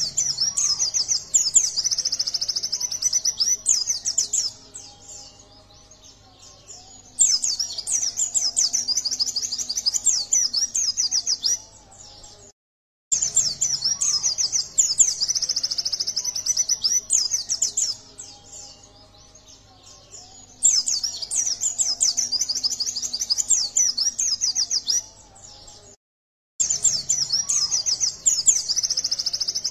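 Yellow-breasted white-eye (pleci dada kuning) singing in full voice: rapid, high twittering phrases a few seconds long, five of them, broken by short pauses.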